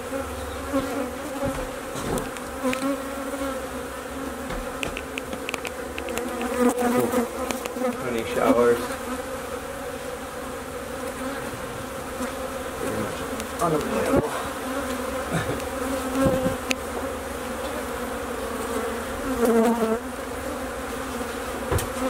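Honey bees from an opened colony buzzing in a steady drone, with individual bees now and then flying close past, their buzz briefly louder and bending in pitch.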